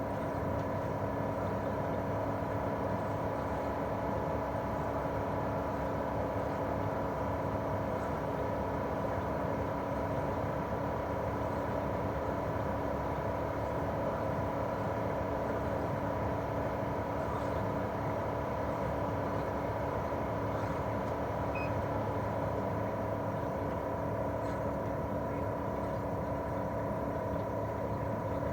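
Daikin R28RMV mini-split outdoor unit running in cooling mode. Its twin-cylinder swing compressor and propeller fan make a steady hum: several steady tones over an even rushing noise, with no change.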